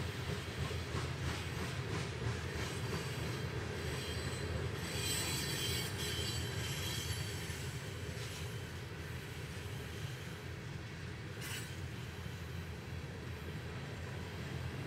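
Loaded freight train cars rolling steadily past, a low rumble of wheels on rail, with high-pitched wheel squeal for a couple of seconds around the middle and a brief squeal again later.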